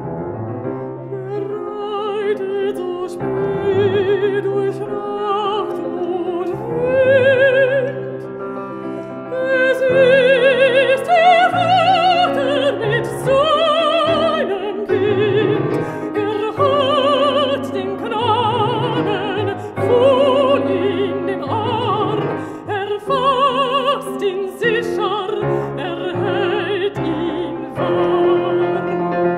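A mezzo-soprano sings a German art song in full operatic voice with a wide vibrato, accompanied by piano.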